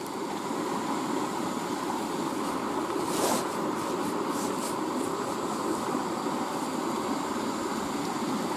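Steady rush of a shallow, fast-flowing river running over rocks. About three seconds in there is a brief rustle of clothing against the microphone.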